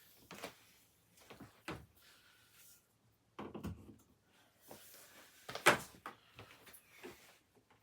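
Scattered knocks, clicks and light rattles of something being handled, a dozen or so short sounds with the loudest knock about five and a half seconds in.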